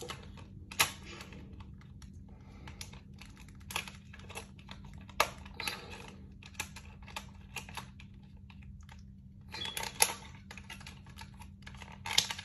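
Irregular small clicks and plastic handling noises as an action figure is worked free of its plastic packaging straps, over a steady low hum.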